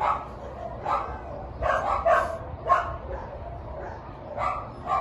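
A dog barking in short, separate barks, about six of them at irregular intervals.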